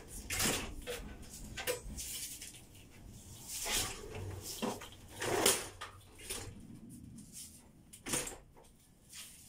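Irregular knocks and clatters from handling aluminium window parts and tools during installation, about seven separate strikes with the loudest near the middle.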